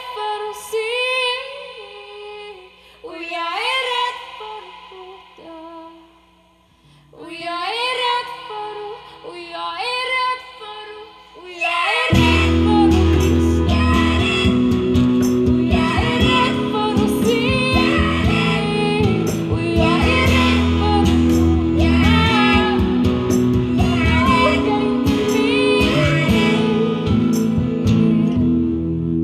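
Two women singing a song to electric and acoustic guitar, played live. The first twelve seconds are sparse sung phrases with gaps between them; then the guitars come in loud and full and stay that way.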